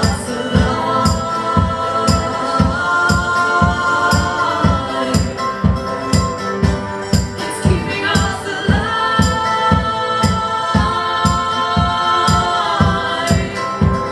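Live band music with a steady low beat, about two and a half hits a second, and tambourine-like high hits over it. Long held notes change pitch every few seconds.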